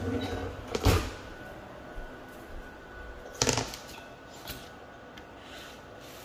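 A kitchen drawer being handled and a thin, flexible plastic cutting board taken out and laid on the counter. There are two sharp knocks, one about a second in and one about three and a half seconds in.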